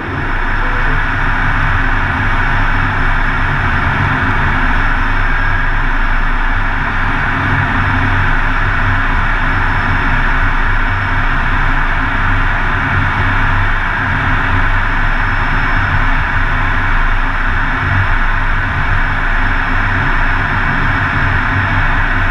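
Steady, loud rush of engine and airflow noise inside an F-16 Fighting Falcon cockpit in flight, with a low hum beneath it.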